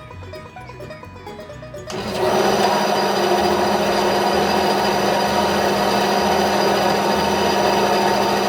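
Ryobi RBS904 benchtop bandsaw switched on about two seconds in, then running steadily with a constant hum and whine, blade turning free without cutting. Quiet background guitar music is heard before it starts.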